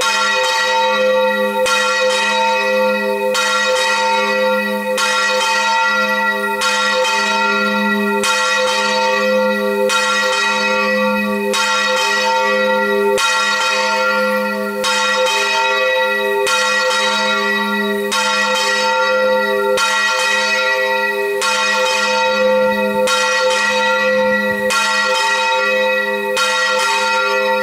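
A single 368 kg church bell swinging full circle (Spanish volteo) and struck about once every second and a half, its ringing hum carrying on between strikes.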